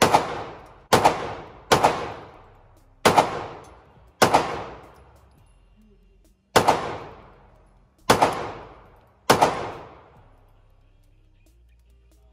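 A semi-automatic pistol fired eight times at an uneven pace, fast at first and then slower. Each shot rings out and dies away in the echo of an indoor range.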